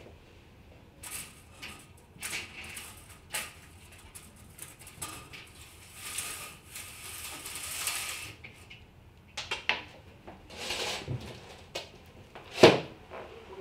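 A person moving about a small room: scattered knocks, footsteps and rustling, a longer rustle lasting about two seconds around the middle, and one sharp knock near the end, the loudest sound.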